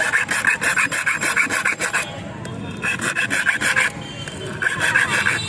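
Hand file rasping on a metal key blank in three bursts of quick scraping strokes, with short pauses between.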